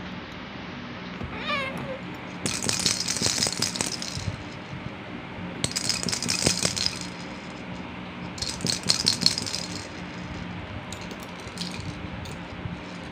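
Plastic maraca-style baby rattle shaken in three bursts of a second or so each, with a few lighter shakes near the end. A short high squeal about a second and a half in.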